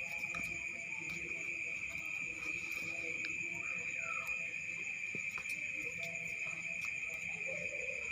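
Night-time chorus of crickets trilling steadily in one continuous high-pitched drone, with a few faint short sounds over it.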